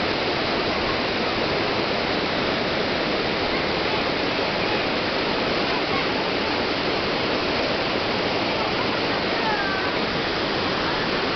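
Tawangmangu Waterfall, a powerful cascade of water crashing over a high overhanging cliff, making a steady, unbroken roar of falling water.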